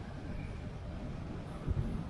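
Wind buffeting the microphone as a low, uneven rumble, with a short thump near the end.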